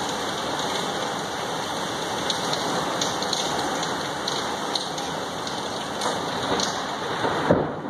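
Heavy thunderstorm rain falling steadily, with single drops ticking close by; a brief sharp sound near the end.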